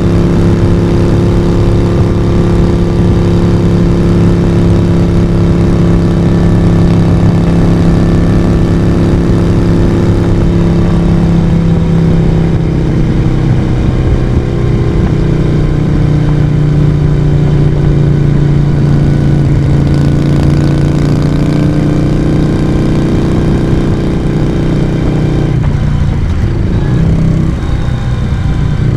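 Moto Guzzi V35's air-cooled transverse V-twin engine running on the move through its exhaust, at steady revs. The pitch settles a little lower about halfway through, and near the end the revs dip briefly and then pick up again.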